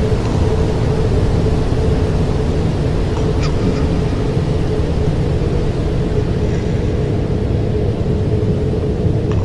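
Steady low rumbling drone with a constant held hum note, with a faint click about three and a half seconds in.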